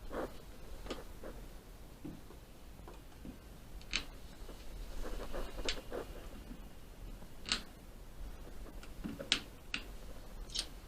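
A handful of sharp, separate clicks or taps, roughly one and a half to two seconds apart, over faint rustling handling noise.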